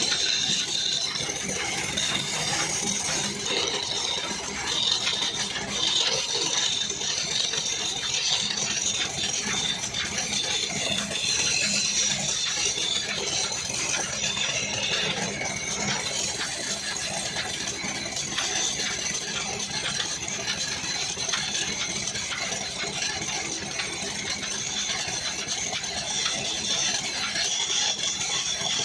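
Wood lathe spinning a long wooden spindle while a hand-held chisel cuts along it: a steady scraping with a constant fine rattle from the machine.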